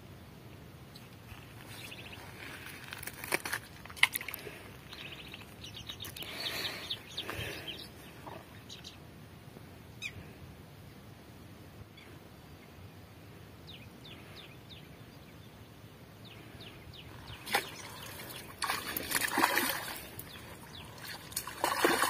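Water splashing and sloshing now and then at the river's edge. A few splashes are sharp and a couple are longer, with faint bird chirps in between.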